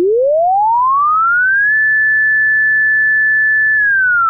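A pure synthesized sine tone sweeping linearly in frequency: it glides up from 110 Hz to about 1760 Hz, four octaves, in about two seconds, holds one steady high pitch for about two seconds, then begins gliding back down near the end. Because the sweep is linear in hertz rather than logarithmic, it seems to hurry through the lower frequencies.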